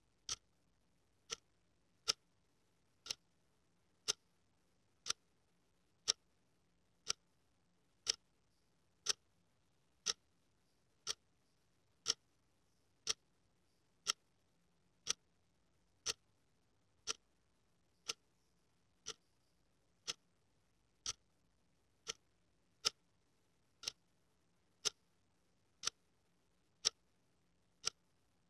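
A clock ticking quietly and steadily, one tick about every second.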